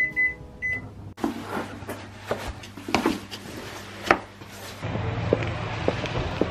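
Microwave oven keypad beeping a couple of times as it is set, over the oven's low hum. Then boot heels knock on a hard stone floor in a few sharp steps, and near the end a steady outdoor rumble takes over.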